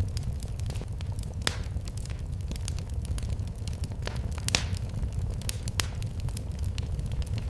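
Wood fire burning in a fireplace: a steady low roar of flames with irregular sharp crackles and pops, two louder pops about a second and a half and four and a half seconds in.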